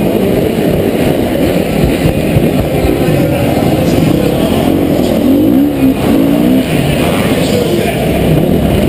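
Dirt bike engine heard close up from the bike itself, running hard and revving up and down as the rider works the throttle through the course, with quick rising and falling pitch changes between about five and six and a half seconds in.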